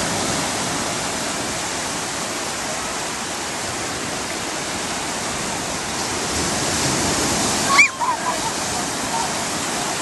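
Breaking surf on a sandy beach: a steady rush of waves washing in around people wading. Near the end a short high-pitched voice call rises over it.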